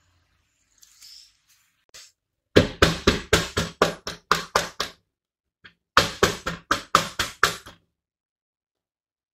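Two runs of quick knocks, about five a second, each lasting about two seconds, with a short pause between them.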